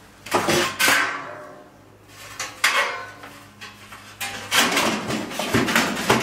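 Strips of sheet-metal trim clattering and scraping as they are picked up and held against a metal-sided wall: a few separate clanks in the first three seconds, then a longer stretch of rattling and scraping near the end.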